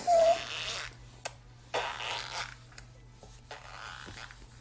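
Spluttering, raspberry-like bursts of breath blown through pursed lips: a loud one at the start, then fainter ones about two and about four seconds in.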